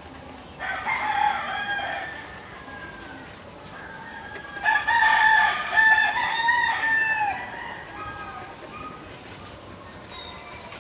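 A rooster crowing twice: a crow about half a second in, then a louder, longer crow starting near five seconds in.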